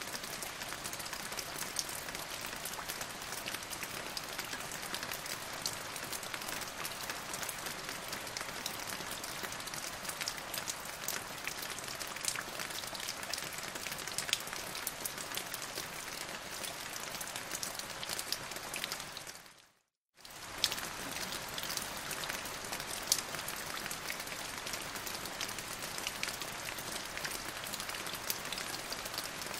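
Steady rain, an even hiss thick with small drop ticks. About two-thirds of the way through it fades out to silence for about a second, then comes straight back.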